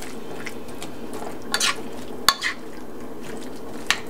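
Vegetable stir-fry sizzling steadily in a steel skillet while a spatula stirs and turns it, with three sharp clicks of the spatula against the pan.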